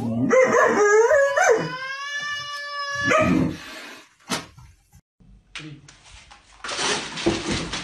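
A dog howling: a wavering call that settles into one long held note, ending in a short loud bark-like yelp about three seconds in. Near the end comes a stretch of noisy rustling.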